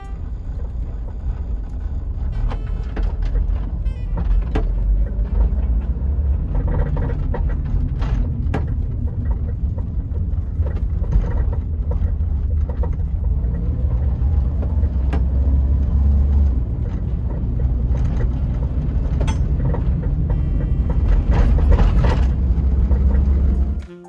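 Volvo 240 station wagon heard from inside the cabin while driving: a steady low road rumble with frequent irregular knocks and clunks from the rear suspension. The knocking is the sign of a worn-out rear shock absorber on the driver's side, its rubber bushing gone.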